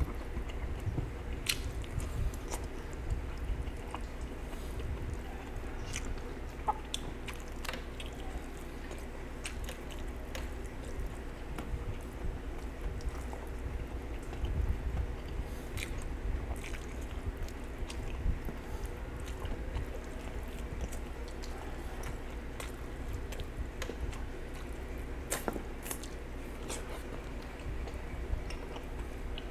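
Close-miked chewing of roast chicken, with many scattered wet smacks and clicks from the mouth over a steady low hum.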